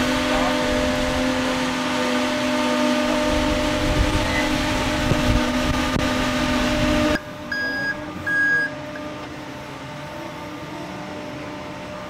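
John Deere 310X battery-electric backhoe loader running under load: a steady hum of its electric drive and hydraulics, holding a few even tones, with some low thuds. About seven seconds in it turns quieter, and two beeps of a backup alarm sound over a lower hum.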